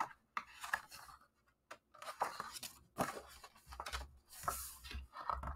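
A picture book's paper page being turned by hand: soft rustling and sliding of paper with a few light clicks and scrapes, coming in short bursts.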